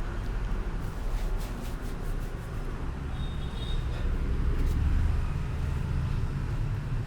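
Steady low background rumble with a few short clicks, and a brief thin high tone a little past three seconds in.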